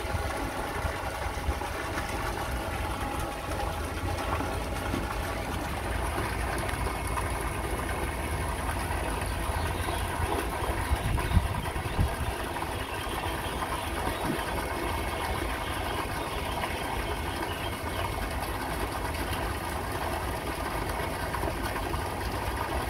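A steady mechanical hum with several held tones over a low rumble, and two brief knocks about eleven and twelve seconds in.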